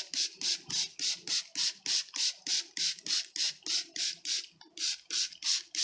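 Hand spray bottle squirting sugar-water mist onto a package of bees, about five quick hissing squirts a second, with a short break a little past the middle.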